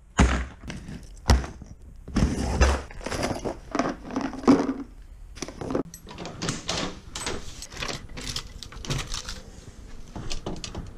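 Handling noise of fishing gear: irregular knocks, clatters and rattles from a plastic tackle box of lures and a rod being carried, with a few loud thumps in the first half.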